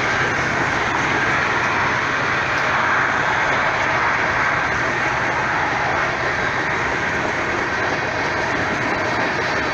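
Norfolk Southern mixed freight train's cars rolling past: a steady noise of steel wheels running on the rails.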